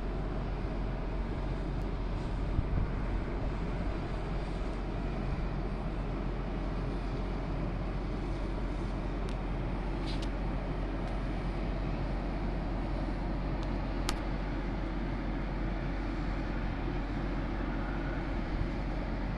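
Steady outdoor background rumble and hiss at a ship terminal quay, with a few faint clicks.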